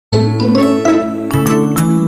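Intro music: a melody of struck, ringing notes over held bass notes, starting abruptly at the very beginning.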